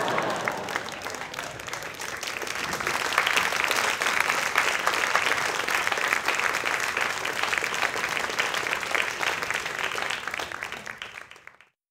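Audience applauding, swelling a couple of seconds in and fading out near the end.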